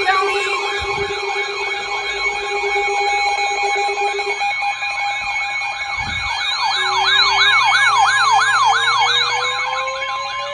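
Several electronic sirens sounding at once, their pitch sweeping up and down a few times a second over a steady tone. The sweeps are louder and faster in the second half. About two-thirds in, a lower tone begins to rise slowly.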